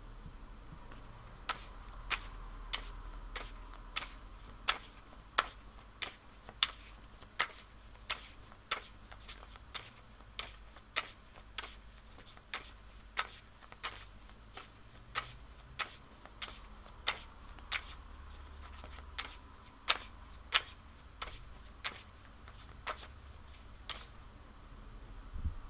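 A deck of astrology cards being shuffled by hand: a steady run of light card snaps, about two a second, that stops near the end.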